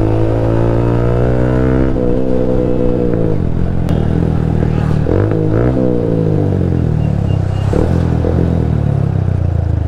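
Honda Hornet 160R's single-cylinder engine running under way, its pitch climbing with the throttle and dipping and rising again several times.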